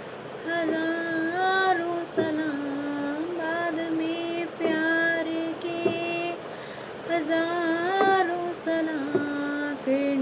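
A woman singing a Hindi song with musical accompaniment: long held notes that slide and waver in pitch, in phrases of a second or two.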